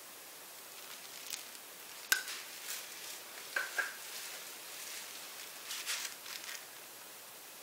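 Light clicks and taps of paint cups being handled and set down, with soft rustling from the gloved hand, over a steady faint hiss. The sharpest tap comes about two seconds in, with a few more clustered later.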